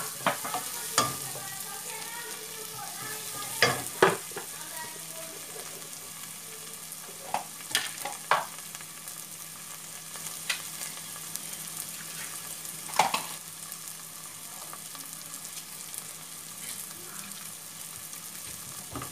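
Onions, green chillies and tomato frying in ghee with turmeric and chilli powder in a non-stick pan over a low flame: a steady sizzle. A wooden spatula knocks and scrapes against the pan now and then, mostly in the first half.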